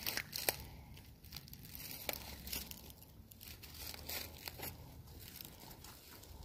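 Footsteps in boots through dry weeds and over loose rocks: irregular crunching and crackling, with a sharp click now and then.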